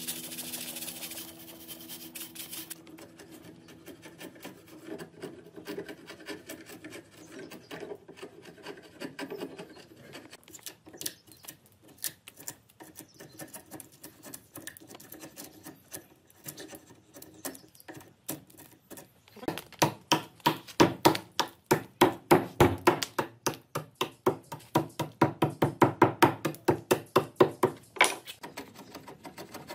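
A flat metal hand scraper is dragged along the rotten, crumbly edge of a wooden slab, rasping off decayed wood. The strokes are quiet and scratchy at first, then come loud and quick, about three a second, through the last third.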